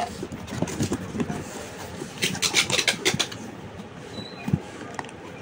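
A cardboard packing box being opened and handled: its flaps and inner box rustle and scrape, with scattered knocks. A denser run of rustling comes about two to three seconds in.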